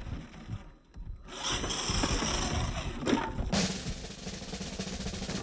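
Music led by a drum kit, with snare and bass drum, which drops out briefly about a second in and changes character at about three and a half seconds.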